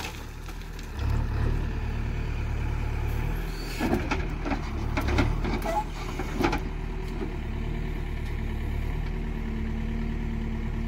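JCB 3DX backhoe loader's diesel engine running steadily as the machine works, picking up about a second in, with a few sharp knocks in the middle.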